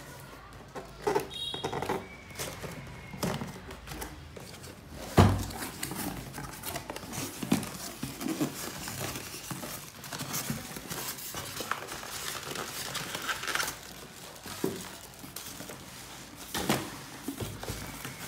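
Unpacking noise: a cardboard box being opened and handled, with plastic wrapping crinkling around foam packing and the air fryer inside. Irregular rustles and knocks, with one sharp knock about five seconds in.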